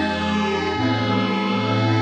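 Background music: slow, sustained ambient instrumental chords, shifting to a new chord about a second in.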